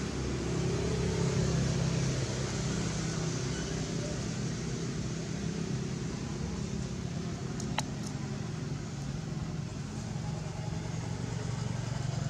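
A motor vehicle engine running steadily nearby, a low hum that is a little louder in the first two seconds. A single sharp click about eight seconds in.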